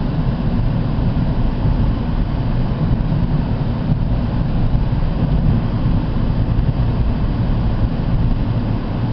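Steady road and engine noise inside the cabin of a moving car, mostly a low rumble.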